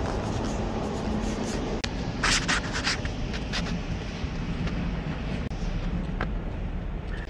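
Footsteps scuffing on pavement over a steady low rumble of wind and handling noise on a handheld microphone, with a louder cluster of sharp scrapes a little over two seconds in.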